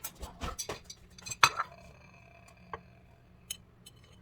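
Cutlery knocking and clicking against a plate, with one sharp clink about a second and a half in that rings on for about two seconds, then a couple of light taps.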